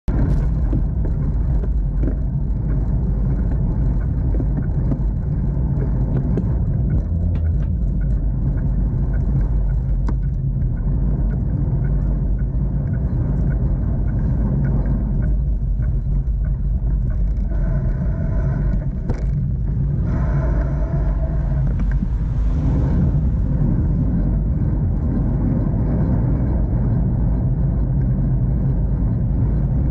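Steady wind rumble on the camera microphone of a moving bicycle, mixed with road noise. Twice past the middle, a pitched whine with several tones comes in for about a second.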